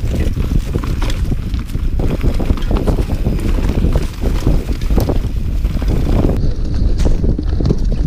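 Mountain bike riding fast down a rough dirt trail: a steady low wind rumble on the camera's microphone, with tyres rolling over dirt and the bike rattling and clattering over bumps and roots.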